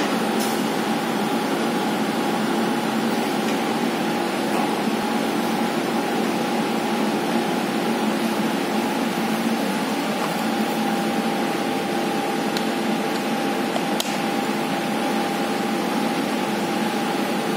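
Steady mechanical hum with a constant whine, unchanging throughout, with a couple of faint ticks.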